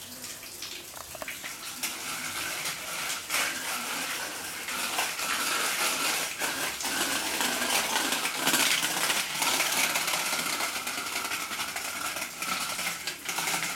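Child's bicycle with training wheels rolling over tiles and paving, rattling and clinking with many small metallic clicks.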